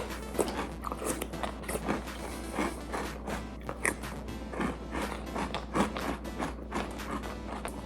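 Fast, irregular crunching and chewing of peanut butter Cap'n Crunch cereal in a person's mouth, many crisp crunches close together.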